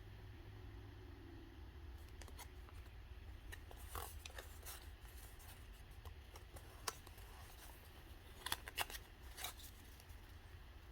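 Faint handling of a Pokémon booster pack and its trading cards: scattered soft clicks and crinkles, with a few sharper ones about four seconds in and a small cluster near the end.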